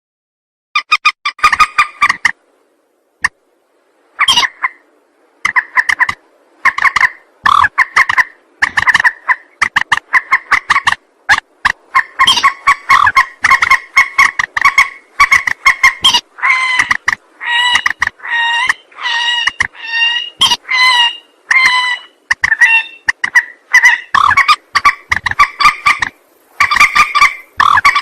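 Rail (burung mandar) calling: fast runs of short, harsh notes, repeated again and again with brief gaps between the runs. It is a lure call recording used to draw the birds in.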